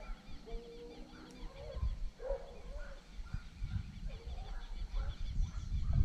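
Pack of hunting dogs baying and barking in short scattered calls as they chase a wild boar, with small birds chirping over them.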